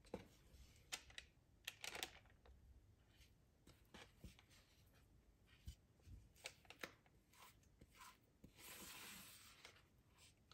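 Near silence with a few faint clicks and, near the end, a soft scrape lasting about a second, as thick cake batter is poured and scraped from a bowl into a cake pan.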